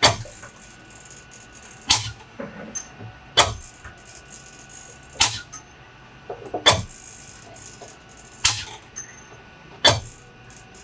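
Transfer pump of a Graco reactor rig cycling as it pushes flushing fluid through the A-side hose. It gives a sharp clack at each stroke, evenly about every one and a half to two seconds, seven times.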